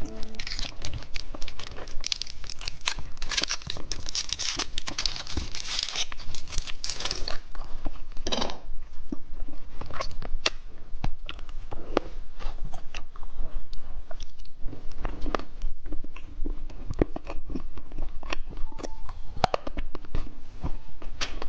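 Plastic candy wrapper tearing and crinkling for several seconds, then scattered sharp crinkles and crunches.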